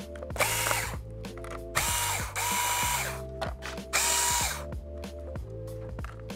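Cordless electric screwdriver backing out a laptop's bottom cover screws in three short runs. Its motor whine rises to a steady pitch each time, holds, then drops away.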